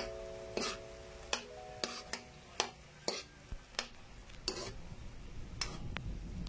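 Irregular soft clicks and short scrapes, roughly ten of them, unevenly spaced, over a held chord of quiet music that fades out about halfway through.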